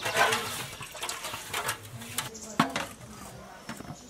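Water splashing and sloshing as a large aluminium basin is rinsed by hand, with one sharp knock a little over halfway through.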